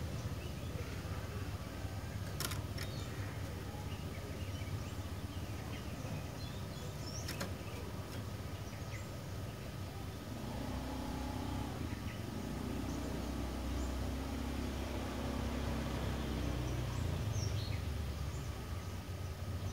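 Low steady rumble of a passing motor vehicle, building from about ten seconds in and easing near the end, with a few faint bird chirps over it.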